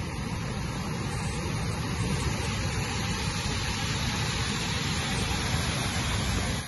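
Strong gale wind buffeting the microphone over a rough, surging sea: a steady, loud rushing noise with a heavy low rumble.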